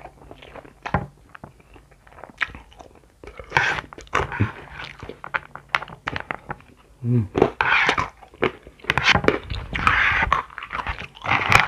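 Close-miked eating of instant noodles mixed with crunchy pilus flour balls: wet chewing and crunching with many sharp mouth clicks, and several longer slurps of about half a second to a second each.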